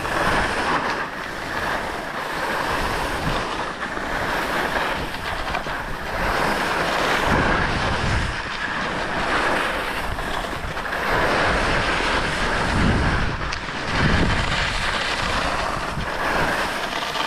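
Skis sliding and carving turns on packed snow: a continuous hiss that rises and falls, with wind rumbling on the microphone at times.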